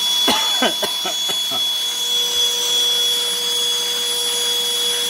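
Black+Decker 20V Max cordless stick vacuum running with a steady high whine, with a few quick rattles in the first second and a half as spilled debris is sucked up.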